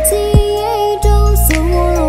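Burmese pop song playing: a held, wavering melody line over steady bass, with drum hits about every half second.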